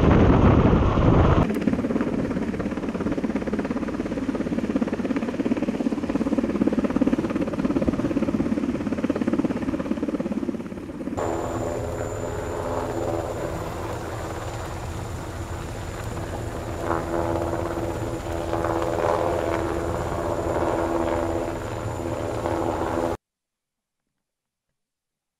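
UH-60 Black Hawk helicopter hovering with a sling load: steady rotor and turbine noise, with a thin steady high whine over the rotor's even drone in the second half. Wind buffets the microphone in the first second or so, and the sound cuts off suddenly near the end.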